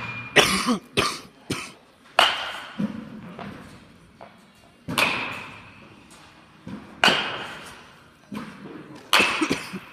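Baseball bat hitting pitched balls: four loud, sharp cracks about two seconds apart, each with a short ring. Softer knocks come in the first second or so.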